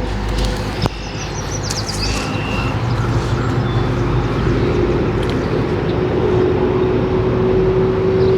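Motor vehicle engine noise: a steady low rumble and hum that grows gradually louder.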